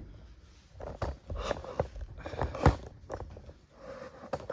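Irregular knocks, taps and clatter of wooden furniture parts and hardware being handled during assembly, with sharper knocks about a second in, around two and a half seconds in, and near the end.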